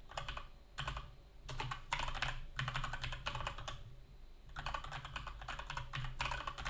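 Typing on a computer keyboard: quick runs of key clicks, with a short pause a little past halfway.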